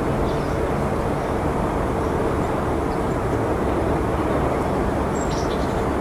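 A steady low rumbling noise with a faint hum in it.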